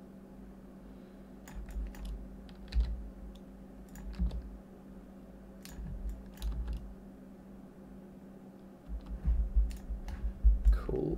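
Irregular keystrokes and clicks on a computer keyboard, with dull thumps, coming in short clusters at about two, four, six and nine to eleven seconds in, over a faint steady hum.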